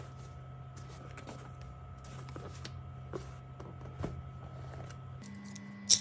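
Light clicks and small scrapes of close-up handling over a steady low electrical hum, with one sharp, louder click near the end.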